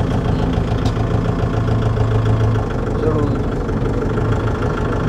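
Kubota MU 5502 tractor's four-cylinder diesel engine running steadily with a low hum, heard from inside its closed AC cabin as the tractor moves off pulling a field leveller.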